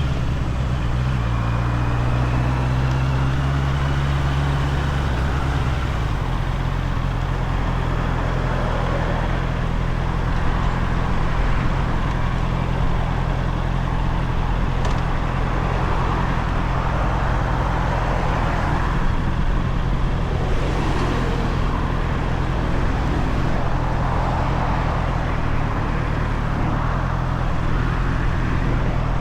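Honda CBR650R inline-four motorcycle engine on its stock exhaust running at a steady pitch, heard from the rider's seat with wind and road noise. Its note steps down about five seconds in and then holds steady.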